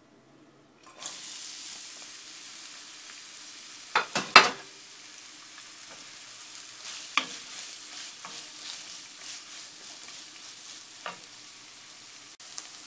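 Sliced onions hit hot oil in a nonstick pan about a second in and start sizzling steadily. A cluster of loud knocks comes about four seconds in, then a wooden spoon scrapes and taps against the pan as the onions are stirred.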